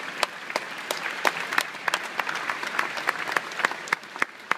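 Arena crowd applauding a winning rally, with many sharp individual claps close by standing out from the general clapping.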